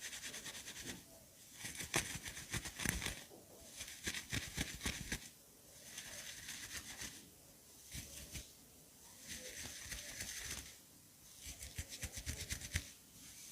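Hairbrush bristles drawn through hair in repeated close strokes, each a second or so of fine scratchy rustle, about one every two seconds.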